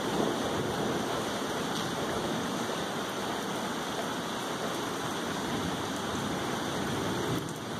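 Steady rain falling, an even continuous hiss with no distinct events.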